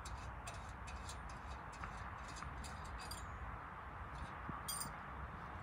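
Small, light ticks and clicks from a brass B22 bayonet bulb holder being unscrewed by hand inside a cast-iron-and-glass lantern, about three a second at first and sparser after about three seconds, over a steady low outdoor hum.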